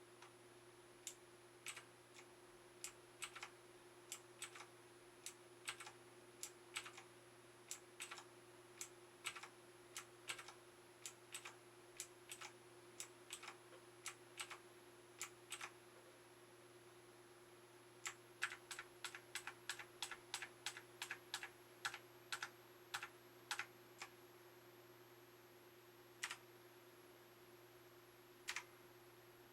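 RiZUM G-FACTOR Z10 mechanical keyboard keys being pressed one at a time, with crisp clicks about one to two a second. A quicker run of keystrokes follows after a short pause, then two lone presses near the end. A faint steady hum sits underneath.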